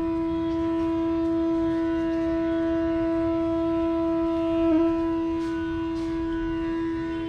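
Bansuri (bamboo flute) holding one long, steady note in raag Yaman, with a brief flick in pitch a little past the middle.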